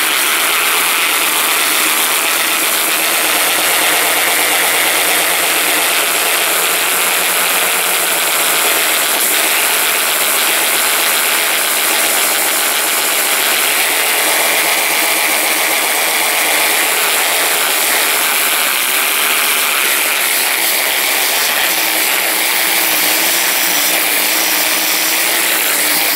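8-inch air sander with an 80-grit disc running steadily against a plastic bumper cover, grinding the slag off the welded seams: a loud, constant hiss with a faint wavering hum as the disc bears on the plastic.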